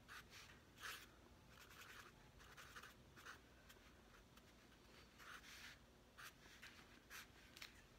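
Felt-tip marker drawing on sketchbook paper: faint, short, scratchy strokes coming irregularly, about one or two a second, as small circles are drawn.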